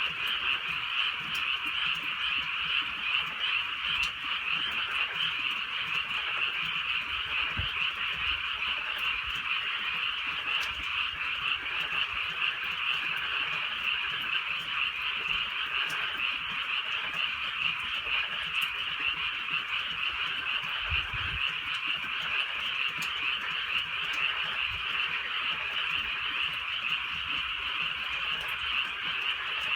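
A dense chorus of many frogs calling at once, a steady, unbroken din that neither swells nor fades, with a few faint ticks here and there.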